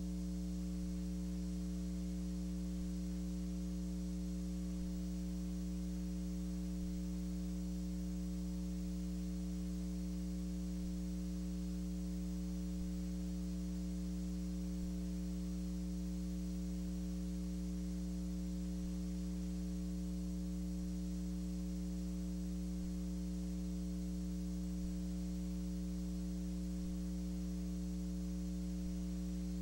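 Steady electrical mains hum with a faint hiss underneath, unchanging throughout; no other sound.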